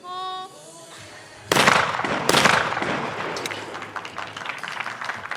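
A brief call, then two 12-gauge skeet shotgun shots about a second apart, fired at a pair of clay targets, followed by applause.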